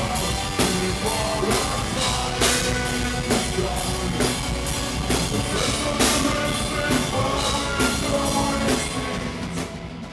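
Rock music with a pounding drum kit and sustained guitar and vocal notes, fading out near the end.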